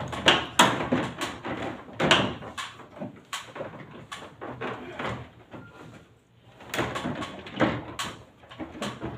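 Plastic casing of a Carrier wall-mounted split air conditioner's indoor unit being handled and pried off: a run of irregular clicks, knocks and rattles, with a brief lull about six seconds in.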